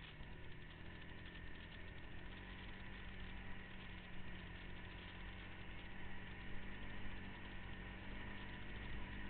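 ATV engine running at a steady, fairly even speed with no sharp revving.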